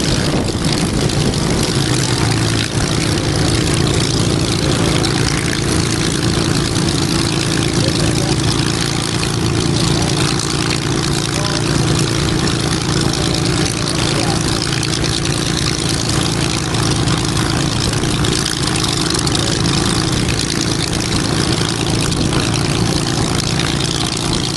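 Hawker Hurricane Mk XII's Packard Merlin V12 engine idling steadily, propeller turning, with the aircraft standing still.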